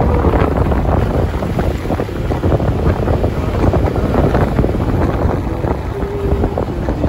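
Wind buffeting the microphone: a loud, steady rumble with crackling gusts.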